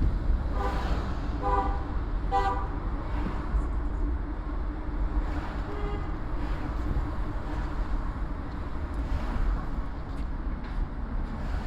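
A car horn gives three short toots about a second apart, over the steady low rumble of traffic.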